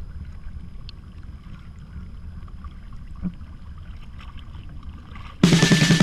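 Low wind rumble and water sloshing beside a kayak as an arm reaches into the sea, with faint scattered splashes. About five seconds in, a loud pitched sound starts suddenly.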